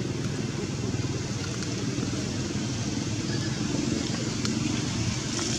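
An engine running steadily, a low rumble that keeps an even pace and level without revving.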